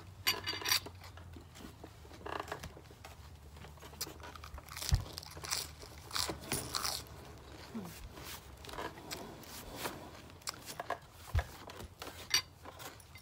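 Close-up eating sounds: irregular crunching, biting and wet chewing of crisp food, with two low thumps, about five seconds in and near the end.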